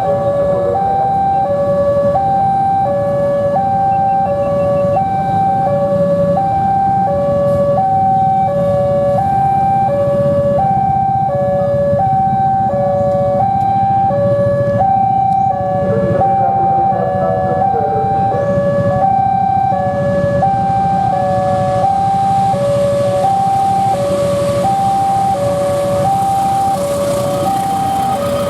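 Railway level-crossing alarm sounding an even two-tone high-low warning, about one cycle a second, over a low steady rumble. It is the signal that a train is approaching and the crossing is closing.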